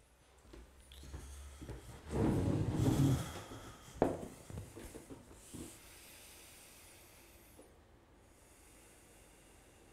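Faint room tone with movement noise: a rustle about two seconds in, then one sharp tap or click about four seconds in.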